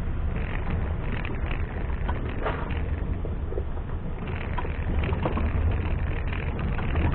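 Off-road vehicle engine running steadily, with scattered clicks and knocks over it.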